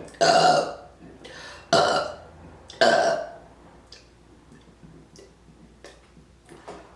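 A woman burping on command: three loud burps about a second apart in the first three seconds, each dying away quickly, followed by a few faint clicks.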